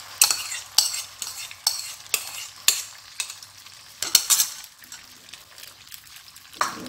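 Beaten eggs sizzling in hot oil in a non-stick frying pan, with a run of sharp crackles about twice a second over the first four seconds, then a quieter hiss as the egg sets.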